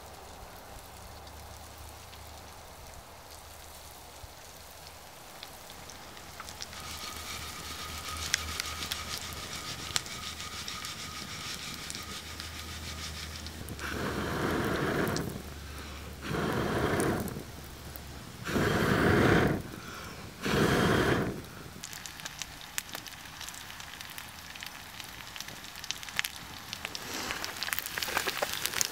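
Campfire crackling with hash browns frying in a pan. About halfway through, four loud breaths are blown onto the embers to fan up the flames.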